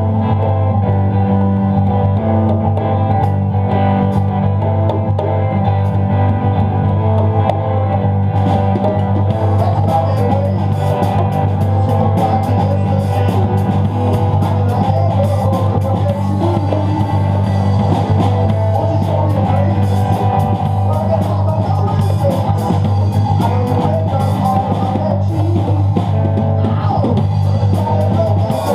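Rock music from guitar and drums, loud and muddy in sound, with a heavy steady low drone underneath. Drums and cymbals come in much more strongly about eight seconds in.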